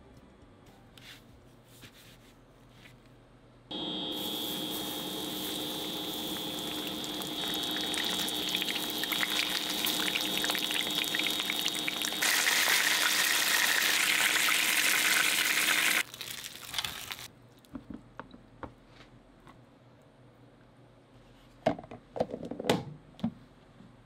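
Starch-coated flounder fillets sizzling in hot oil in a frying pan as they shallow-fry: a loud, steady hiss that starts about four seconds in, gets louder partway through and stops after about twelve seconds, with a steady high whine under it. A few short light clicks and knocks near the end.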